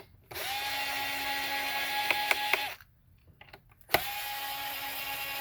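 Electric screwdriver backing out the brush-head screws of an iRobot S9 robot vacuum. Its motor whines steadily for about two and a half seconds, stops, then runs again from about four seconds in. A few sharp clicks near the end of the first run are the sign that the screw has come all the way out.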